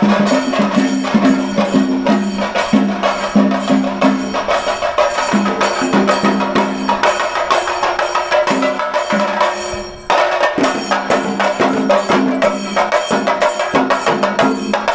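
Background music with busy, fast percussion of about four strokes a second over a repeating low melody; it breaks off briefly about ten seconds in and starts again.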